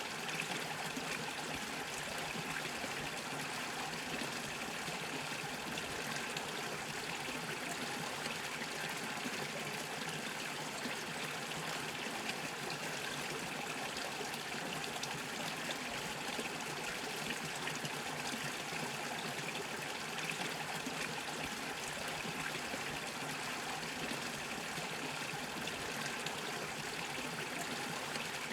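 A small brook bubbling and trickling over stones, steady and unchanging.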